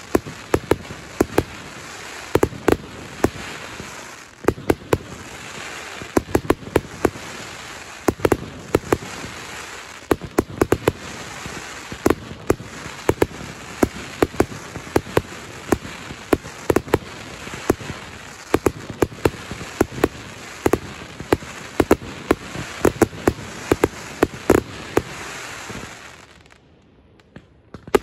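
Fireworks finale barrage of rockets (foguetes): a dense, irregular run of sharp bangs, several a second, over a steady hissing rush. The barrage falls away near the end.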